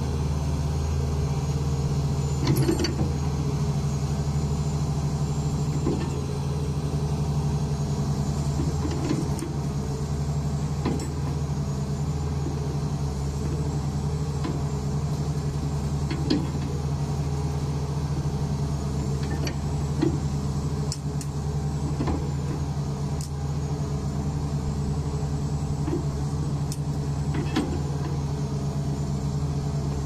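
Caterpillar 336D2 excavator's diesel engine running steadily as the boom and bucket are worked, with a faint high whine that wavers in pitch and occasional short knocks.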